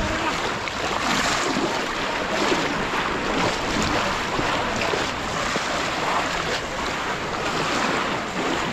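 Steady splashing and sloshing of muddy pond water as many people wade through it, with wind on the microphone.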